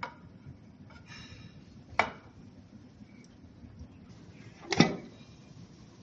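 Tools and metal parts clattering as they are handled: three sharp clinks or knocks about two seconds apart, the last the loudest, with a short scraping rattle about a second in.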